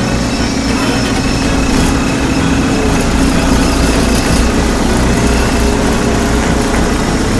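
A heavy engine idling steadily: an even, low rumble that holds unchanged throughout.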